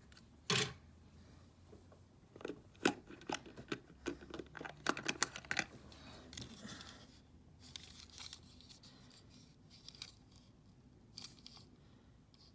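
Handling noise from small die-cast toy trucks: a sharp click about half a second in, then a cluster of clicks and rustling between about two and six seconds, with a few more clicks near the end.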